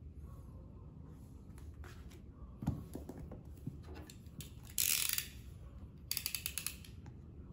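A snap-off utility knife's blade being pushed out with a quick run of about ten ratcheting clicks, about six seconds in. Before it come a dull thump and a short, loud rustle as the shrink-wrapped cardboard box is handled.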